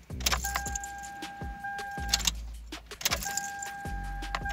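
Ignition key jangling and clicking as it is turned off and back on twice; each time the key comes on, a steady whine with a low hum runs for about two seconds and cuts off, the electric fuel pump priming to build fuel pressure before the engine is started.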